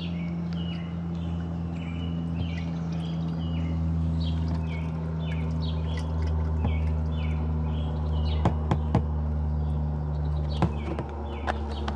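Small birds chirping again and again over a steady low, engine-like hum, with a few sharp clicks in the last few seconds.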